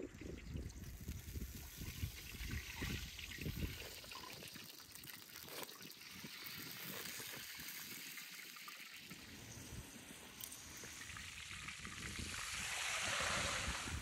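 Hot oil sizzling and crackling as chebureks deep-fry, the hiss swelling near the end.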